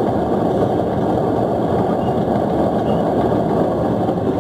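Fishing boat's engine running steadily, a loud, even mechanical noise that does not change in pace.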